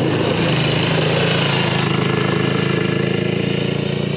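Yerf Dog off-road go-kart's single-cylinder Tecumseh engine running flat out at a steady pitch, held back by its governor as the kart drives off.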